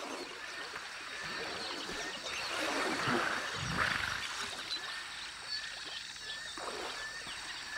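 African elephant bathing in a lake: water splashing and sloshing around it, swelling louder about three to four seconds in as it rolls, with short bird chirps repeating in the second half.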